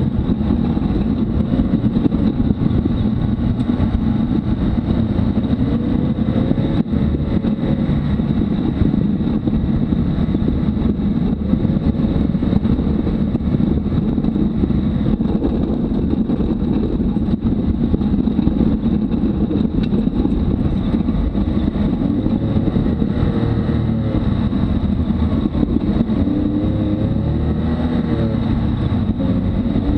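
Can-Am Maverick X3 side-by-side driving on a rough dirt trail: its turbocharged three-cylinder engine runs under varying throttle, its pitch rising and falling a few times, over a steady heavy rumble of tyres and chassis.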